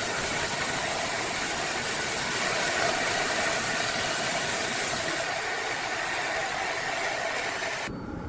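Industrial horizontal bandsaw running through a dense hardwood log: a steady, loud, hissing machine noise that drops off suddenly near the end.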